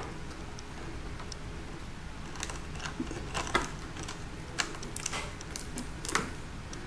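Scattered light clicks and ticks, a handful spread over several seconds, from a plastic wire nut being twisted onto the ground wires at a dishwasher's electrical junction box, over a faint low hum.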